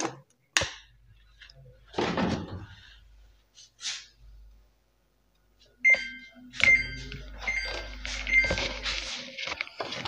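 Samsung top-load washing machine's control panel beeping as its buttons are pressed: a quick run of short high beeps starting past the middle, over a low hum. A few knocks and rattles of handling come first.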